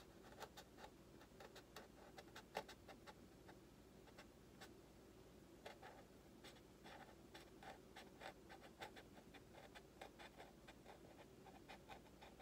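Faint, irregular ticks and scratches of a hobby knife trimming a hole in the foam wing panel of a Freewing F-35 model jet.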